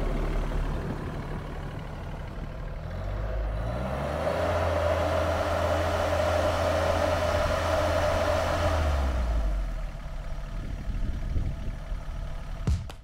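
Kioti CS2220 sub-compact tractor's 21 hp diesel engine running. About three seconds in it revs up, holds the higher speed for several seconds, then drops back toward idle. Music with a drum beat starts at the very end.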